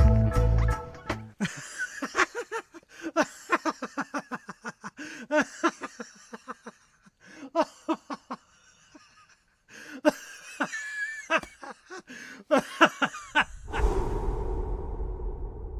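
A long, cackling laugh: short pitched bursts in quick runs broken by brief pauses. Near the end a whooshing swell takes over.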